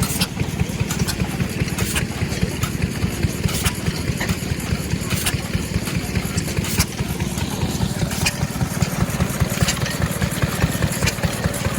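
Small antique engine running steadily at a rapid, even firing beat, with occasional sharp clicks.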